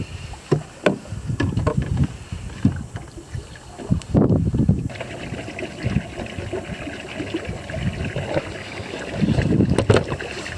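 Wind on the microphone and choppy water lapping against a fishing boat, with scattered clicks and knocks from fishing gear being handled. Low rumbling swells rise about four seconds in and again near the end.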